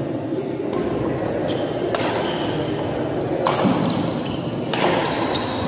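Badminton rackets striking the shuttlecock in a fast doubles rally, about five sharp hits. Between the hits come short high squeaks of shoes on a wooden court floor, over a steady murmur from a crowd in a large hall.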